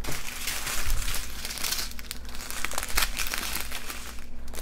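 Small plastic bags of diamond-painting drills crinkling and rustling as they are picked up and handled: a dense, unbroken run of quick crackles.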